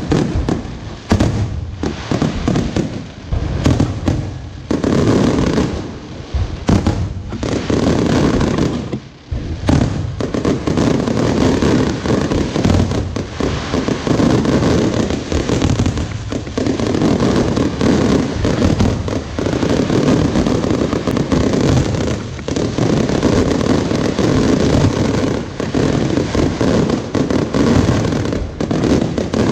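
Fireworks going off in a dense, continuous barrage of bangs and crackling, with a short lull about nine seconds in before it resumes without a break.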